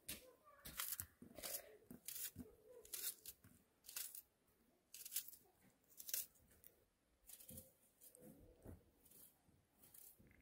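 Small knife cutting through a peeled raw onion held in the hand: faint crisp crunches, irregularly about once a second.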